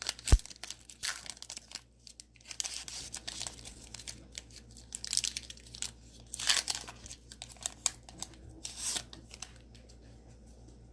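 Cellophane wrapper of a trading-card cello pack crinkling and tearing as it is opened, in irregular bursts, with a single sharp knock about half a second in.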